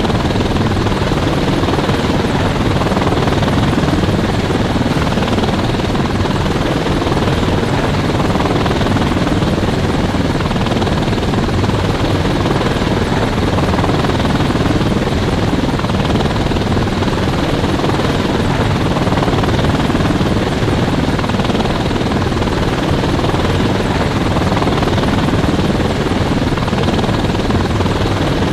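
Helicopter running steadily nearby, a loud continuous drone of rotor and engine with no change in pitch or level.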